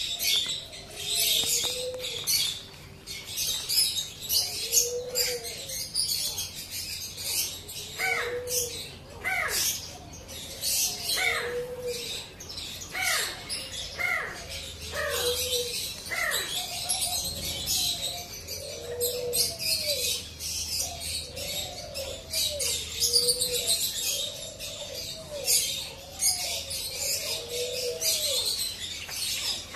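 Many aviary birds calling together: dense high chirping and twittering throughout, with a low call repeating every second or two and a series of short falling whistles through the middle.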